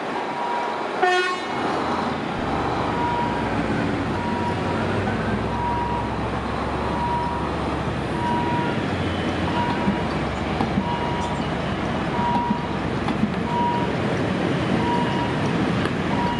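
Diesel locomotive giving one short horn toot about a second in, then its engine running with a low rumble while a single-pitched electronic warning beep repeats about once a second.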